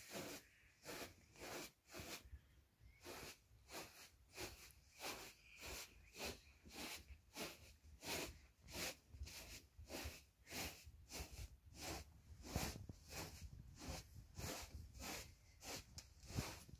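Faint, soft rhythmic swishing, about two a second, as a baby is rocked in a hanging cloth cradle.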